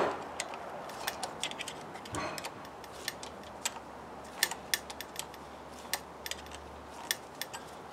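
Irregular light metallic clicks, about two or three a second, of a wrench working a self-locking nylon-insert nut loose on a bicycle caliper brake's mounting bolt, with a louder knock right at the start.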